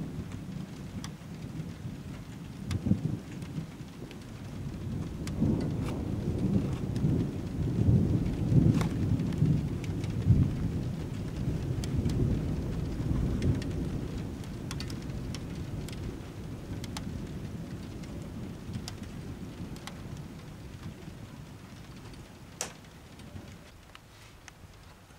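Thunder rumbling, swelling to its loudest about eight to ten seconds in and then slowly dying away, over steady rain with scattered drop ticks.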